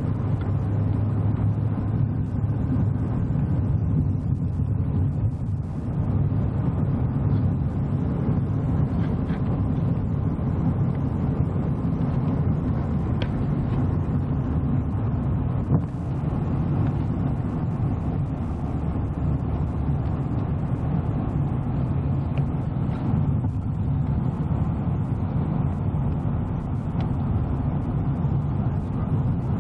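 Steady low rumble of a moving vehicle's engine and road noise, running evenly throughout.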